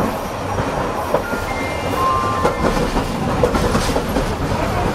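Hiroshima Electric Railway 570-class tram No. 582 running along street track, heard from inside its cab: a steady rumble of wheels on rail with scattered clacks and knocks. A few short, thin whines come near the middle.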